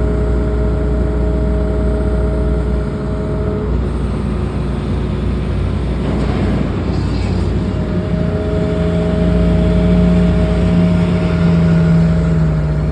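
Hitachi excavator running under load: a steady engine drone with a high hydraulic whine. The whine drops out about four seconds in. After a noisier stretch, a deeper engine note comes in and grows a little louder, with the whine returning.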